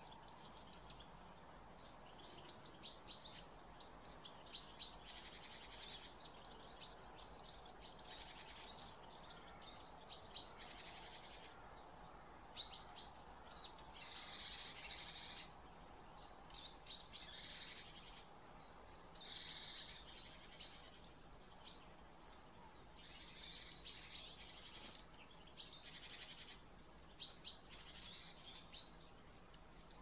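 Small songbirds calling and singing: short high chirps and quick trills come in bursts every second or two, often overlapping.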